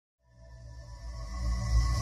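Intro music fading in from silence: a low drone with a few steady high tones held above it, growing steadily louder.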